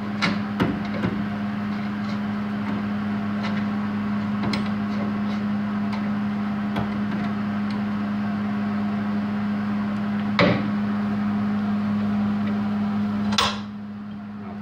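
Steady machine hum and hiss with a few sharp metal knocks as a steel repair section is handled and fitted against the vehicle's frame rail; the hiss cuts off with a click near the end.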